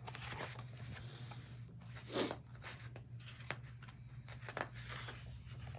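Rustling and handling of a hardcover picture book as it is moved and its pages are shifted, with short crackles and one louder rustle about two seconds in, over a steady low hum.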